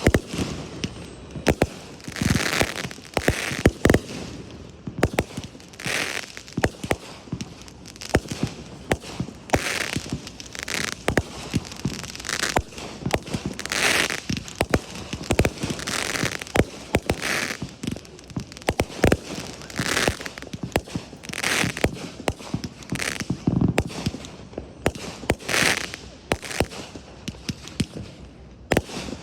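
Fireworks display: a continuous run of bangs from exploding shells, with a crackling, hissing burst every second or two.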